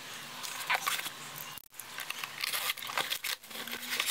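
A cardboard book mailer being torn open and handled: a run of scraping, tearing and crinkling cardboard with small clicks, broken by a brief gap about halfway.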